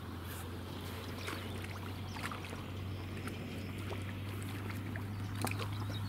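A hooked carp splashing and thrashing at the pond's surface as it is drawn into a landing net, with water sloshing in short irregular bursts over a steady low hum.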